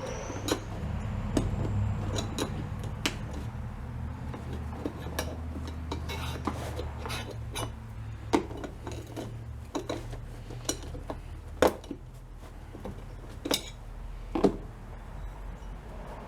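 Irregular clicks and taps of a pry tool working a trim piece loose from a vinyl car door panel, over a low steady hum.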